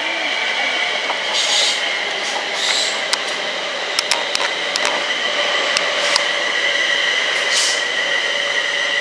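London Midland electric multiple unit running past the platform, its motors giving a steady high whine over the rumble of the wheels. A quick series of sharp clicks from the wheels comes about three to six seconds in, with a few short hissing squeals.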